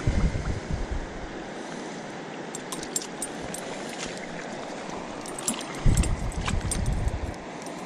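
Steady shallow-water noise at the bank with scattered small splashes and clicks, broken twice by loud low rumbling buffets on the head-mounted microphone, once at the start and again about six seconds in.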